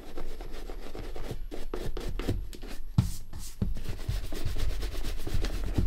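Shoe brush swept quickly back and forth over the leather of a Red Wing 9874 work boot, a run of irregular scratchy strokes to loosen dirt before cream is applied.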